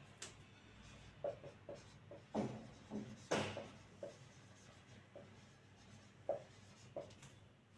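Marker pen writing on a whiteboard: a run of short, faint strokes and squeaks as letters are written, a couple of them louder in the first half.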